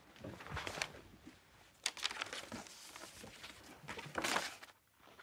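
Paper rustling and crinkling as it is handled, in three bursts, the last about four seconds in.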